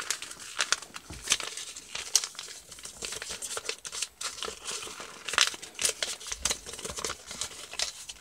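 A sheet of paper being folded and creased by hand, giving irregular crinkles and crackles as the flaps of a paper airplane are pressed down.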